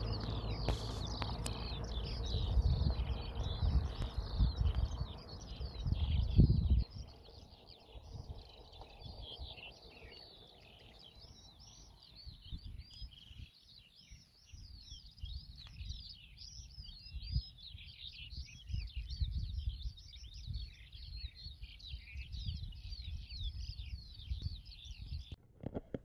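Many songbirds singing at once, a dense chorus of overlapping chirps and trills. Wind rumbles on the microphone, heavily for about the first seven seconds and then in occasional gusts.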